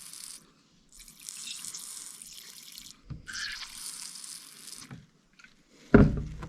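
Three long hissing blasts from a spray nozzle into the mechatronics unit's valve bores, followed by a sharp knock near the end.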